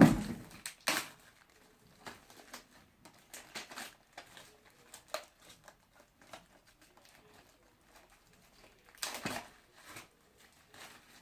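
Packaging being handled: scattered crinkling and rustling with small clicks, a sharp knock right at the start and a louder rustle about nine seconds in.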